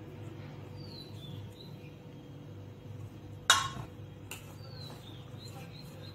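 A hand rubs ghee into a flour mix in a steel bowl over a steady low hum, with one sharp clink against the bowl about halfway through. High, falling chirps sound twice.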